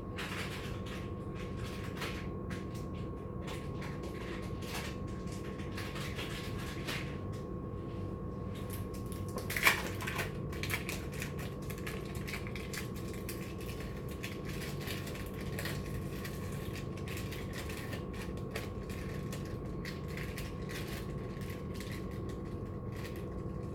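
Small clicks and rustles from hands handling food and kitchen items over a steady electrical hum, with one sharp click or knock about ten seconds in.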